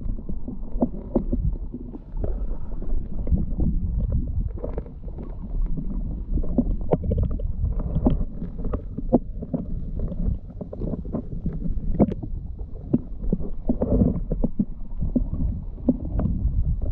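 River current heard underwater through a submerged camera: a muffled, steady low rumble with frequent small clicks and knocks.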